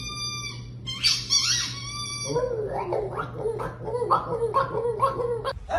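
A dog vocalizing: a high, steady whine for about a second, then a higher wavering whine, then a run of low, warbling grumbles, two or three a second. A steady low hum runs underneath.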